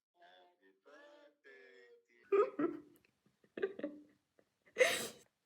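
People's voices: soft talking, then three louder vocal outbursts about a second apart, the last the loudest and harshest, like a shout.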